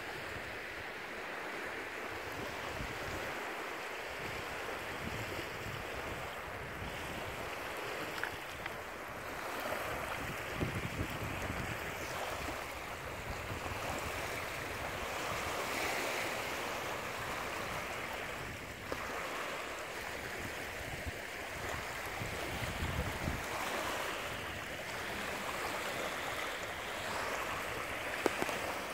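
Steady wash of small waves on a lake shore, with wind buffeting the microphone in uneven low gusts.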